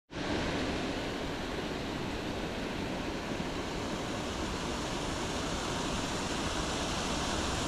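Steady, even rush of water pouring over rocks, with no break or change.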